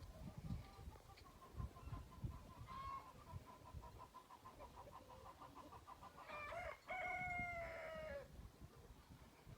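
A rooster crowing once, a drawn-out call of about two seconds near the end, falling slightly in pitch. Before it, a faint run of quick, evenly spaced soft notes, with a low rumbling noise underneath.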